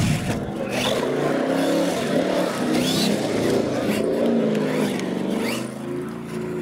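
Radio-controlled monster truck's electric drive whining, its pitch rising and falling with the throttle as it drives and jumps on gravel, with tyres crunching and scattering the gravel.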